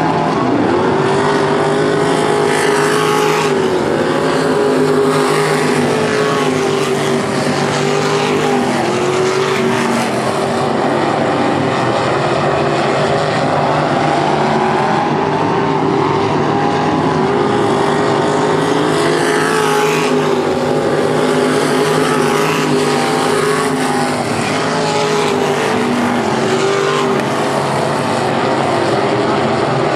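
Traditional non-winged sprint cars racing at speed, several engines running hard at once. The engine pitch repeatedly sags and climbs as the cars lift for the turns and power down the straights.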